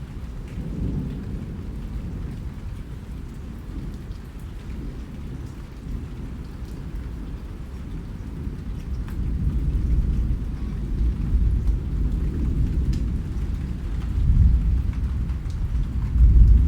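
Rain falling steadily with a low rumble of thunder that swells louder in the second half, a few single drops ticking over it.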